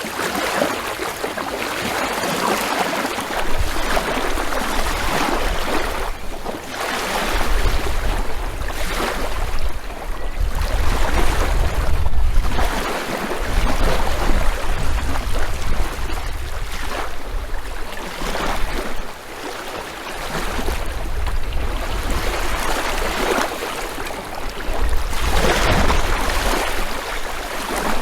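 Sea waves breaking on a beach, the surf rising and falling every few seconds, with wind rumbling on the microphone.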